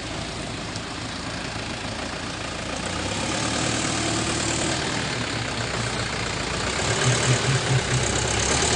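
A light box truck's engine running as the truck pulls out and turns across a narrow road, over a steady noisy hiss. A low pulsing sound comes in near the end as it gets a little louder.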